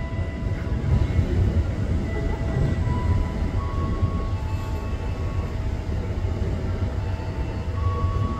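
KRL commuter electric train rolling slowly into the station: a steady low rumble of wheels on rail, with faint thin whining tones coming and going above it.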